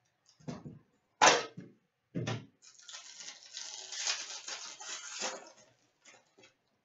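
A few sharp clacks of a metal card tin and its lid on a glass counter, the loudest about a second in. Then about three seconds of crinkling and tearing of a foil wrapper, and a couple of faint clicks near the end.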